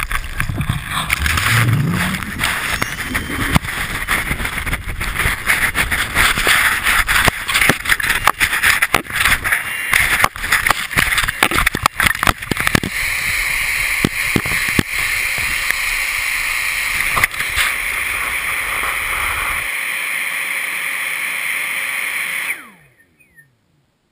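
Loud rushing and scraping of snow over a camera strapped beside an inflated avalanche airbag as it tumbles through moving snow, with many sharp knocks. The noise cuts off suddenly near the end as the camera comes to rest under snow.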